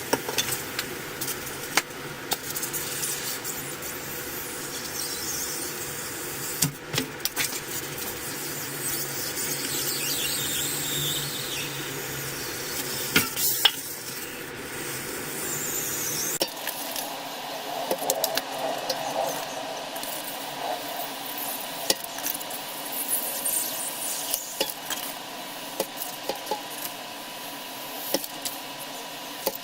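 Hot-wire foam cutter drawn through polystyrene foam, the foam squeaking and crackling as the heated wire melts through it, with scattered small clicks. The sound changes character about sixteen seconds in.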